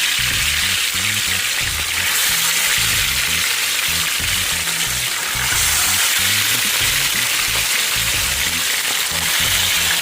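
Seasoned fish frying in hot oil, a steady, dense sizzle. Background music with a bass beat plays along.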